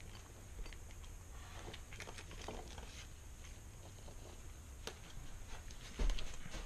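Faint handling noises from gloved hands working the cylinder studs and gasket of a small two-stroke bike engine: light scattered clicks and taps of metal parts, with a louder dull bump about six seconds in.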